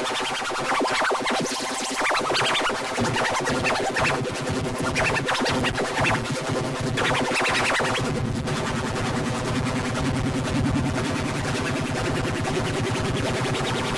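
Loud, dense electronic music with a distorted, chaotic sound, full of fast stuttering and scratch-like sweeps. It runs without a break.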